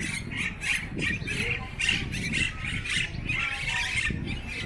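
Birds squawking and chattering, several sharp calls a second, over a low background rumble.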